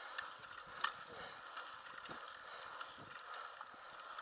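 Small hard wheels of a three-wheeled Trikke carving scooter rolling on asphalt: a faint, steady crackling hiss with a few light clicks and rattles, one sharper click a little under a second in.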